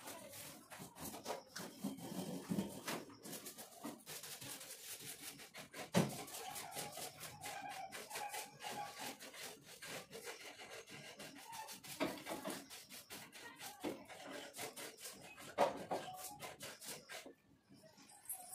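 Cloth wiping a refrigerator in quick, repeated rubbing strokes, with a few sharp knocks along the way.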